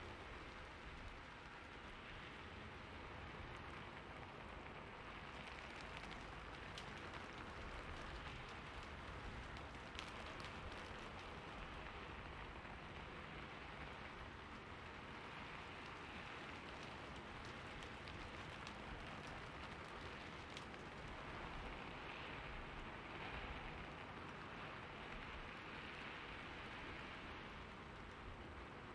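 Steady rainfall, a continuous hiss of rain with scattered individual drops ticking on a surface.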